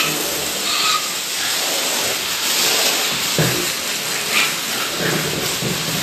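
Pigs squealing a few times over a steady hiss.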